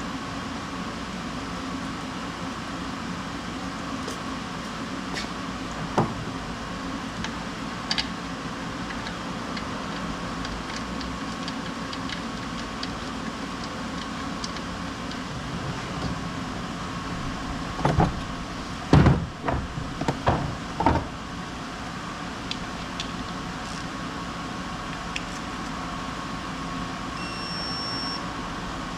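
Workshop background of a steady mechanical hum, broken by occasional single tool clicks and a short cluster of loud knocks about two-thirds of the way through. A brief high electronic beep sounds near the end.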